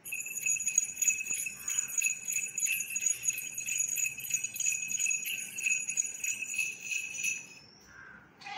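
Bells jingling rapidly and continuously over two steady ringing tones, cutting off suddenly about seven seconds in.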